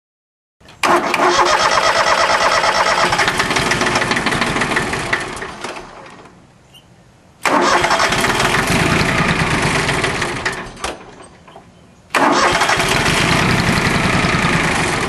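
Small Yanmar YM1401D tractor diesel being cranked three times: each attempt starts suddenly and dies away after a few seconds without the engine keeping running. It is a hard start from air in the fuel system after a fuel filter change.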